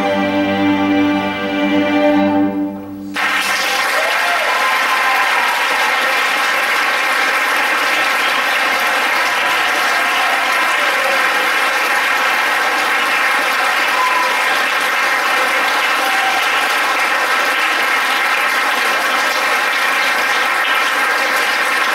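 A student string orchestra of violins, cellos and basses holds its final chord, which cuts off about three seconds in. Then an audience applauds steadily, with a few cheers.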